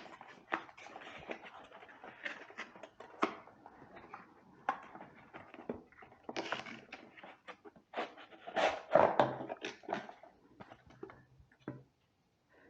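Irregular clicks, knocks and light rattles of a headlight being fitted and adjusted on a tractor grille, with a louder cluster of handling noise about nine seconds in.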